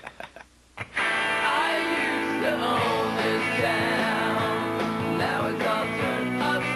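A rock theme song with guitar and a singing voice starts abruptly about a second in, after a few short hits and a brief near-silent gap.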